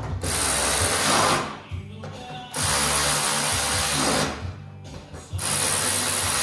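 Power driver running in three bursts of about a second and a half each, driving in the fasteners that hold an ATV's plastic body panels.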